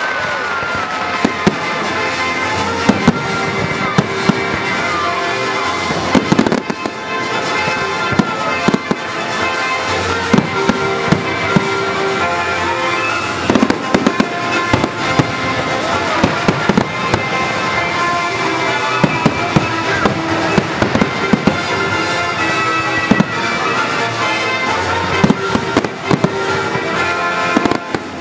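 Fireworks going off in many sharp bangs and crackles throughout, over loud music that accompanies the display.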